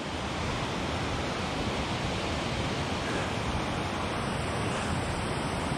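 Steady rush of water pouring over a dam's waterfall.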